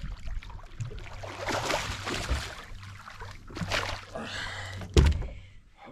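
Close-by water splashing and handling noise on a small fishing boat, with one sharp knock about five seconds in.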